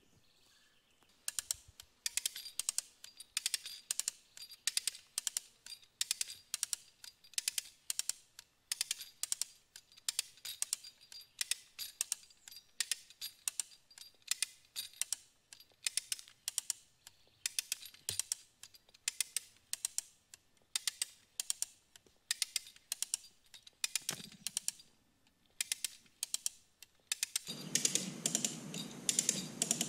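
Maasdam rope come-along being pumped by hand under load, its ratchet pawls clicking in quick rhythmic runs with each stroke of the handle as it pulls a green stump through a 4-to-1 snatch-block rig. Near the end a steady rushing noise rises under the clicking.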